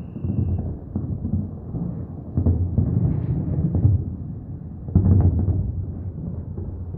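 Aerial fireworks exploding in rapid succession: a continuous low rumble of deep booms, with heavier bursts about a second in, around two and a half seconds in and at five seconds.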